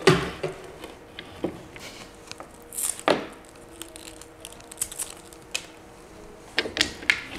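Handling noise from a coiled Ethernet patch cable being loosened and unwound by hand: scattered rustles and light knocks, the sharpest right at the start and about three seconds in, over a faint steady hum.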